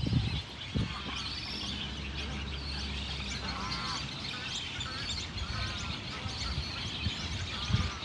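A chorus of many short, overlapping calls and chirps from a nesting colony of waterbirds (ibises, spoonbills and egrets), with a low steady rumble underneath.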